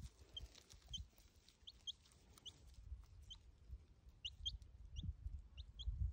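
A young chick peeping: about a dozen short, high, upward-sweeping peeps, often in pairs, scattered through. A few low thuds are mixed in and are loudest near the end.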